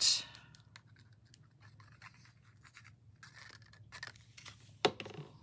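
Cardstock being handled: a brief rustle at the start, then faint scattered rustling and small ticks, with one sharper click near the end.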